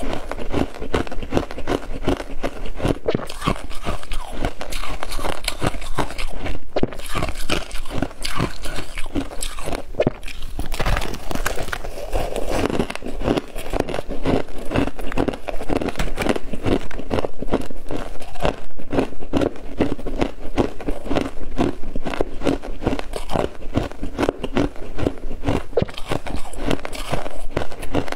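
Freezer frost being bitten and chewed close to the microphone: a dense, unbroken run of crisp crunches, several a second.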